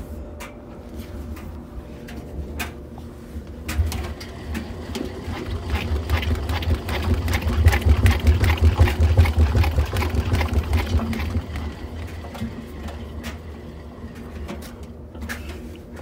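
Front-loading washing machine drum turning under a hand spin with one towel inside, which leaves it off balance. It runs with a low rumble and a rapid train of clicks, growing louder toward the middle and easing off near the end.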